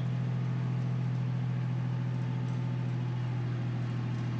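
A steady low machine hum that holds one pitch without change.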